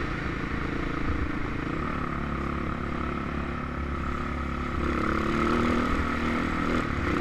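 Husqvarna SM610S supermoto's single-cylinder four-stroke engine running under way on a gravel track, with wind noise on the helmet microphone. The engine picks up revs and gets louder about five seconds in.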